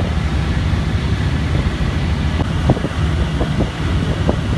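Steady low engine rumble of a water bus under way, with wind buffeting the microphone. A few faint knocks come in the second half.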